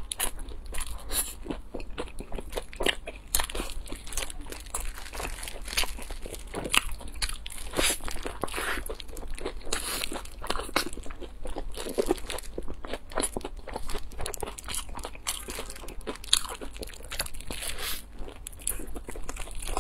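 Close-miked biting and chewing of a crunchy, golden-crusted fried food, with dense, irregular crunches and crackles throughout.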